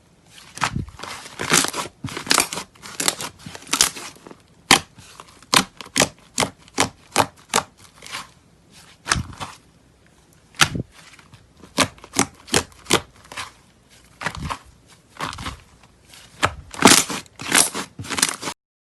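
Slime being squeezed and poked by hand, making an irregular run of sharp crackles and pops, some in quick clusters. It cuts off near the end.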